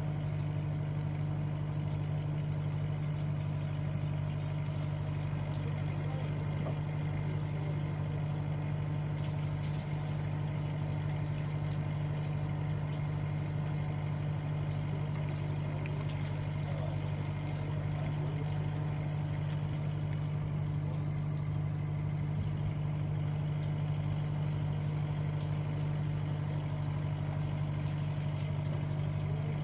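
An engine idling steadily, a constant low hum that does not change in pitch or level.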